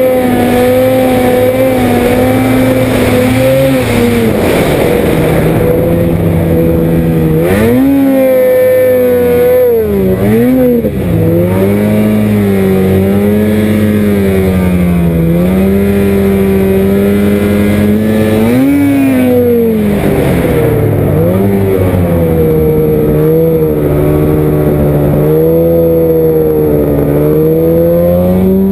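Ski-Doo 800R E-TEC two-stroke twin snowmobile engine running under load through deep powder. The pitch mostly holds steady, then drops and climbs back sharply several times as the throttle is eased off and opened again.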